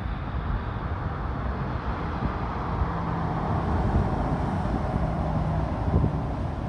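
Boeing 747's four jet engines running at low taxi power: a steady rumble and hiss.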